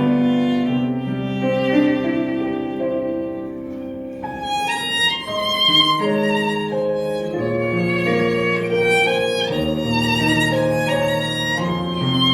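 A small amateur string ensemble playing a slow melody: violins with vibrato over sustained low notes. The violin line moves higher about four seconds in.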